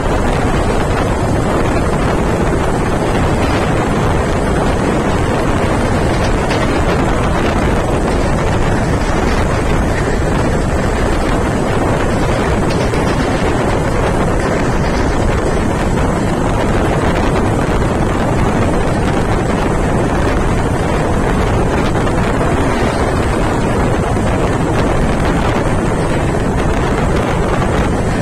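Steady, loud rush of wind buffeting the microphone at the open door of an express train running at high speed, mixed with the train's running noise on the track.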